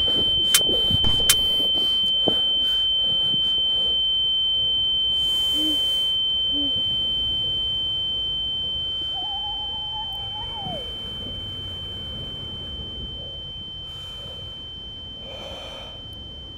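A film's ear-ringing sound effect: a steady high-pitched ringing tone over a low rumble. There are a few sharp knocks in the first couple of seconds, and the whole fades slowly over the second half.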